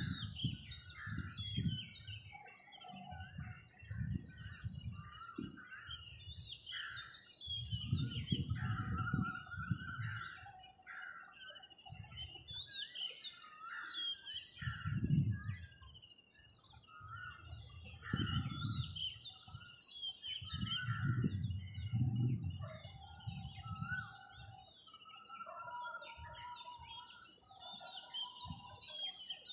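Dawn chorus of many small birds chirping and trilling over one another without a break, under irregular low rumbles that swell and fade every few seconds.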